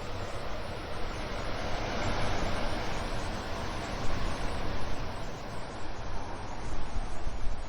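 A steady rushing noise that swells and eases in level, with no distinct tones or clicks.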